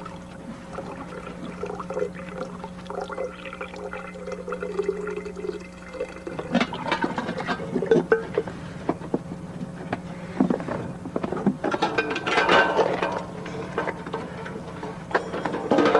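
Running water with a steady hum under it, then scattered clicks and knocks from about six seconds in, busiest near the end.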